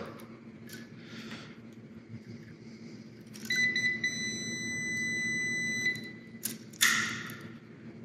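A Fieldpiece clamp meter's continuity beeper gives one steady high beep of about two and a half seconds, starting about three and a half seconds in. It signals that the three-way switch's common terminal and the probed traveler terminal are closed. A short burst of handling noise follows near the end.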